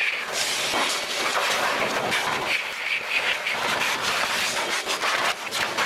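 Master Blaster forced-air car dryer running, its motor-driven blast of warm air blowing water off a wet wheel and tire: a loud, steady rush of air with a whine in it, wavering a little as the nozzle is moved around the wheel.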